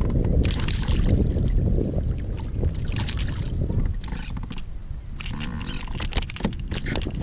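Hooked speckled trout splashing at the surface beside a kayak, with a quick run of splashes and knocks near the end as it is swung aboard. Wind rumbles steadily on the microphone.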